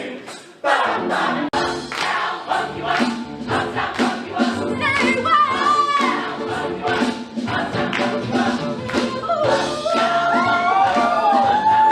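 Show choir singing over accompaniment with a steady beat, cutting in abruptly less than a second in. A solo voice sings gliding lines above the group around the middle and again near the end.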